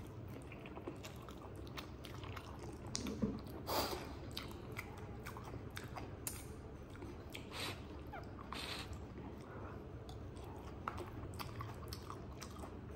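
A person chewing a mouthful of fried kuey teow noodles, faintly, with scattered soft clicks; the loudest come between three and four seconds in.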